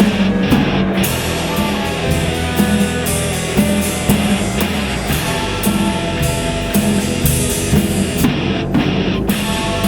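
Heavy metal music: distorted electric guitar over a drum kit keeping a steady beat.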